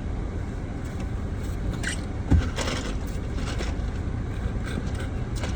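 Steady low rumble of a car's cabin with the engine running, under scattered rustling and scraping of food being handled, and one sharp thump about two seconds in.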